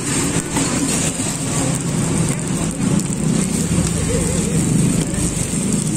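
Egg and macaroni frying in a multi-cup metal griddle pan: a steady sizzle, with a few light clicks of a spoon against the pan and a low rumble of street traffic under it.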